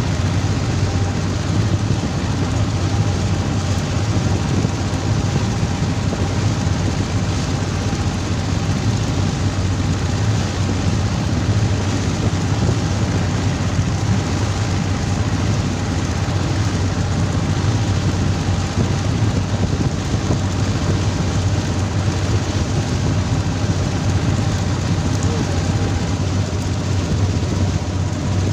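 Fishing boat's engine running steadily at a constant speed, a low, even drone, over the continuous rush of water spray and wash along the hull.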